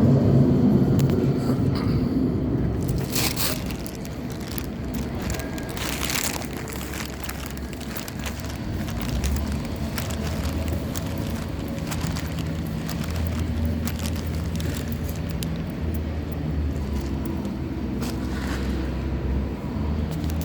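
City street traffic: a motor vehicle's engine noise, loudest for the first two seconds or so and then fading, followed by a steady low engine hum with scattered clicks and crackles.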